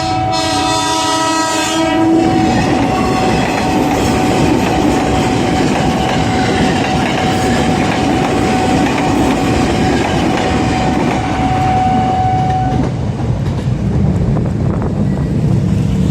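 KRL Commuter Line electric train sounding its horn (the semboyan 35 horn signal) as a chord that cuts off about two seconds in. The train then passes close at speed with loud wheel clatter and rushing noise, a steady high tone running under it until about thirteen seconds in, after which the noise thins out.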